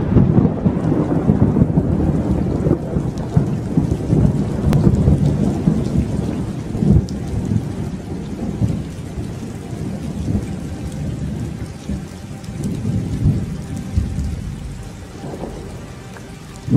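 Thunderstorm: long rolling thunder over steady rain. The rumble slowly dies away, and a fresh clap breaks in right at the end.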